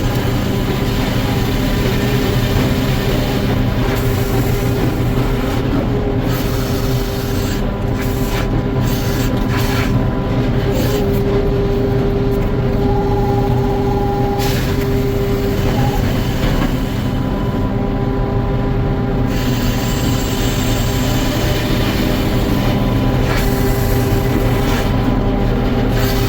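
Sawmill machinery running steadily, heard from inside the saw cab, with a constant hum and a few held tones. The high hiss briefly drops out several times.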